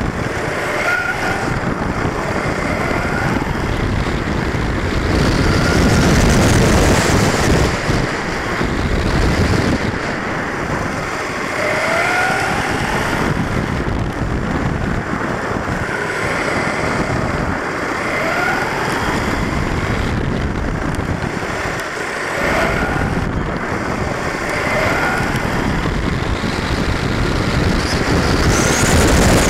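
Onboard sound of a HobbyKing Trooper 1/10 electric 4x4 short-course truck racing on asphalt. The motor and drivetrain whine climbs in pitch every few seconds as the truck accelerates out of corners, over a constant rush of tyre and wind noise. The whine is highest and loudest twice, once about six seconds in and again near the end, on the straights.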